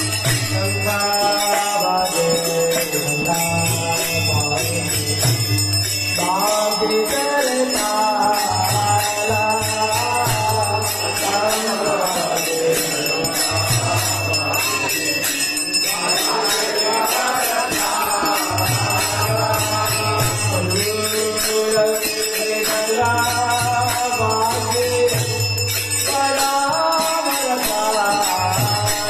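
A hand bell ringing without pause during a temple arati, over devotional music with held, gliding melody lines and a low pulse that comes and goes every few seconds.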